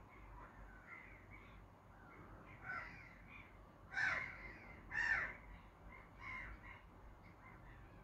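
Birds calling: scattered calls, the two loudest about a second apart midway, each falling in pitch, with fainter calls around them.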